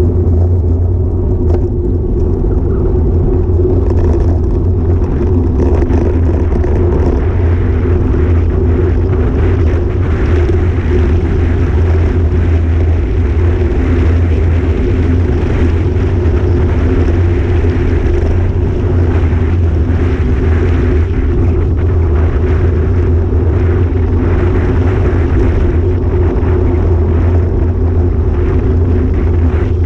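Steady wind rumble on an action camera's microphone, mixed with the road and tyre noise of a road bike being ridden.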